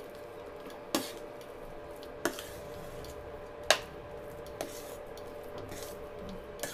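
Metal spoon stirring a thick, wet semolina-and-muskmelon mix in a stainless steel pan, scraping and knocking against the pan with several sharp clinks, the loudest nearly four seconds in. A steady hum from the running induction cooktop lies underneath.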